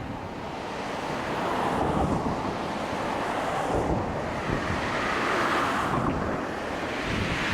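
Strong wind buffeting the microphone in gusts over rough, wind-driven lake waves.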